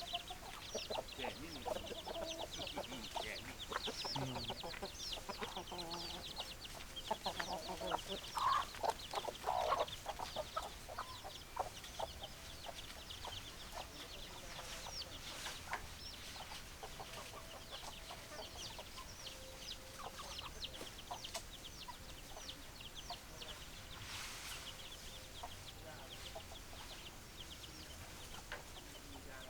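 Chickens clucking, loudest in a cluster of calls near the first third, over constant high-pitched chirping.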